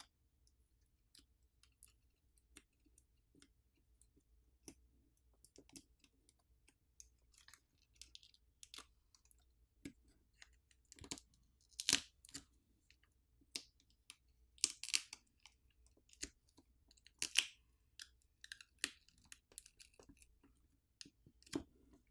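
Adhesive battery pouch in an ASUS Zenfone 9 being peeled up while the battery is pried out of the frame: faint scattered crackles and clicks, with a few louder crinkling bursts in the second half.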